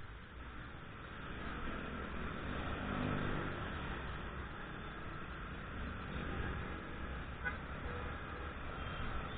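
Road traffic heard from a moving motorcycle: its engine running under a steady rush of wind on the microphone, with other vehicles close by. The sound swells about three seconds in with a pitched tone that could be a passing engine or a horn.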